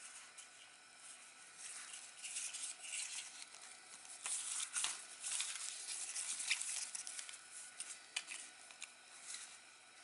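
Plastic packaging and sheet rustling and crinkling as a handlebar headlight switch and its cable are handled and dragged across it, with a few sharp clicks.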